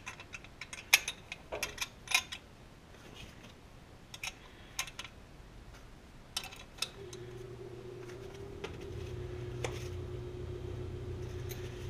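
Small steel brake parts of a drum brake (shoes, springs, hold-down hardware) clicking and tapping against the backing plate as they are handled and fitted. About seven seconds in, a steady low hum starts and keeps going under the clicks.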